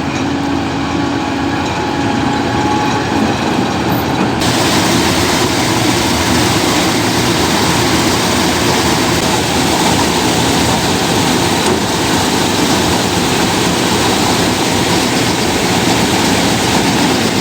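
Combine harvester working wheat, a loud, steady mechanical din of engine and threshing machinery. About four seconds in, the sound grows brighter and fuller.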